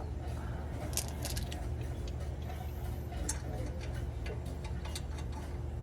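Scattered light clicks and ticks of small metal parts and tools being handled, over a steady low hum.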